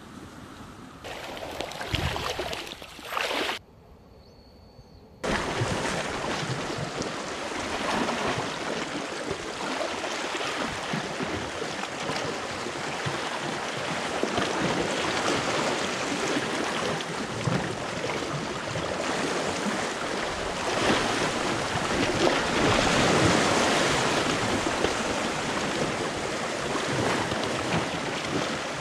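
Small sea waves washing and splashing over rocks at the water's edge, a steady rushing that swells and falls. It sets in suddenly about five seconds in, after a quieter opening with a couple of short rushes.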